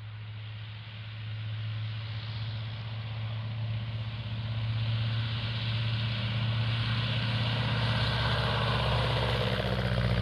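A 1929 Command-Aire biplane's 235-horsepower Wright radial engine running at takeoff power, a steady low drone that grows louder as the plane runs toward and lifts off past the listener.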